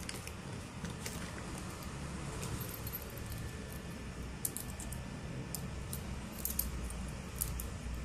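Small metal keys on a ring jangling and clinking as they are handled, with a run of sharp clicks in the second half.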